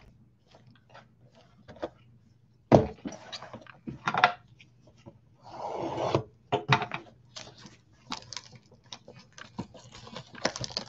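Cardboard box of Donruss football cards being handled and opened: scattered clicks and knocks, a sharp knock about three seconds in, and a short rasping scrape about six seconds in.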